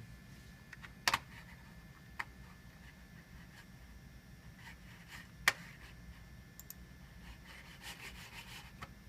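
Small handling noises on a desk: three sharp clicks, about a second, two seconds and five and a half seconds in, then light rubbing and rustling near the end, over a faint steady hum.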